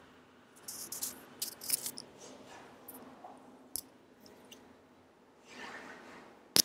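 Faint, scattered small clicks and ticks, with a soft breath-like hiss about six seconds in and two sharp clicks right at the end.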